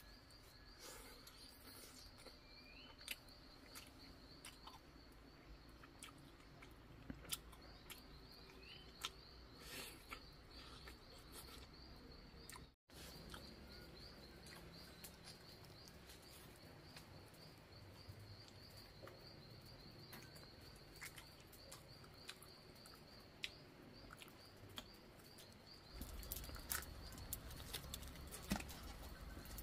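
Faint forest ambience: a steady, high, pulsing trill with a couple of short rising chirps, scattered small clicks and knocks, and a low rumble that comes in near the end.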